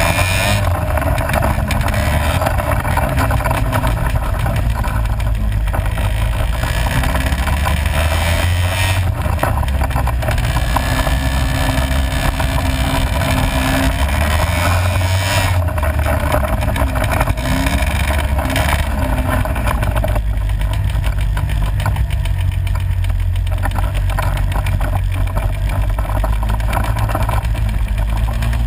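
ATV engine running continuously under load while the quad is ridden along a dirt track, heard close up from its own handlebars.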